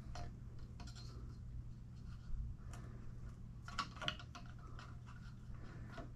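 Faint scattered clicks and light knocks of a lubricated coil spring assembly sliding down by hand inside a suspension fork stanchion, over a low steady hum.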